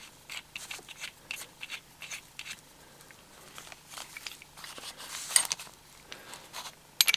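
Small metal clicks and clinks of a tap reseating tool being handled as its cutter head is changed for a bigger one, with a louder clatter about five seconds in and another near the end.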